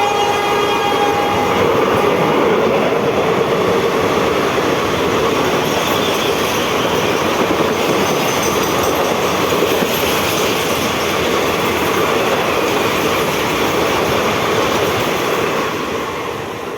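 Express train coaches passing at speed, a loud steady rush and clatter of wheels on rails that fades near the end. The last of the WAP-7 electric locomotive's horn cuts off about a second in.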